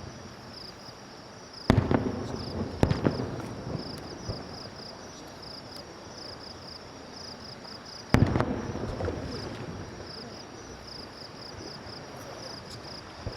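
Aerial fireworks shells bursting: two loud booms, about one and a half seconds and eight seconds in, each followed by crackling and a rumbling tail that fades over a few seconds. Insects chirp in a steady, pulsing high trill underneath.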